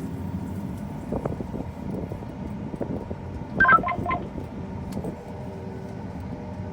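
A quick run of four or five short electronic beeps of different pitches, like keypad tones, a little past halfway, over a steady low engine hum.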